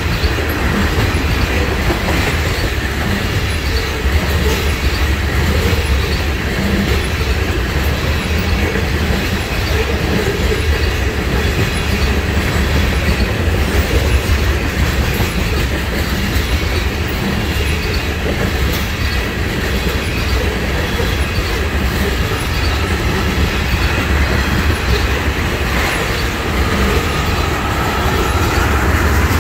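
Loaded oil tank cars of a freight train rolling past, their steel wheels on the rails making a steady, loud rumble. Near the end a faint, thin wheel squeal rises over it.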